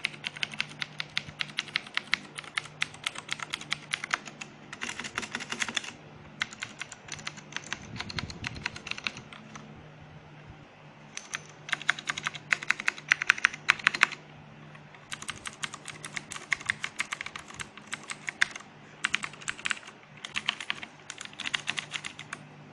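Typing on a Noppoo Mid 87 mechanical keyboard with clicky Cherry MX Blue switches: rapid keystrokes in runs of a few seconds, with short pauses between, the longest about ten seconds in.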